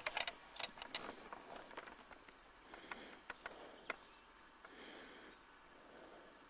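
Faint outdoor ambience by the water: scattered clicks and rustles over the first few seconds, with a short high chirp a little after two seconds in, then a steady quiet hush.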